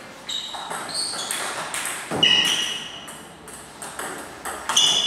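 A table tennis rally: the plastic ball clicks sharply off paddles and table, each hit with a brief ringing ping, several a second. The loudest hit comes about two seconds in, then a short lull, then more quick hits near the end.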